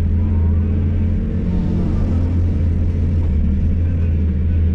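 Hydraulic excavator's diesel engine running steadily with a deep, even hum while the machine digs out earth and clay.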